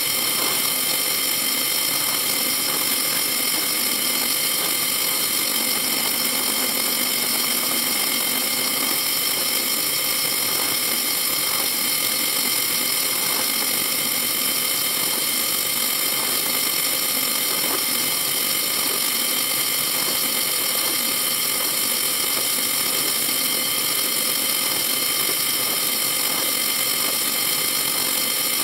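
Benchtop drill press running steadily, a constant mechanical hum with several steady tones, as a small bit drills a ring of closely spaced holes through thin sheet metal to cut out a circle.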